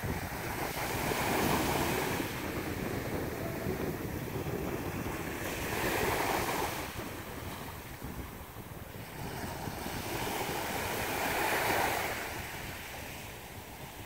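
Small ocean waves breaking and washing up a sandy beach, swelling three times about five seconds apart, with wind rumbling on the microphone.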